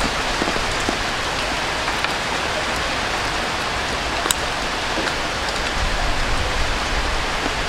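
Steady rushing hiss, rain-like, with one sharp click about four seconds in.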